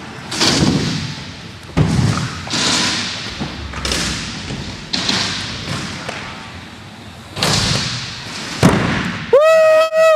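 Scooter wheels and decks thudding and rolling across wooden skatepark ramps, several knocks with echoing tails. Near the end comes one loud, high, steady tone lasting about a second.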